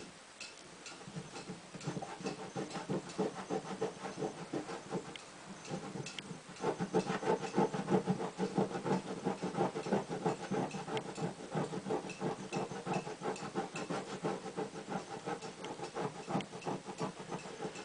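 Cloth rag scrubbing quickly back and forth on a pinball cabinet's side, rubbing off old double-sided tape foam and glue softened with Windex. The strokes get louder about a third of the way in.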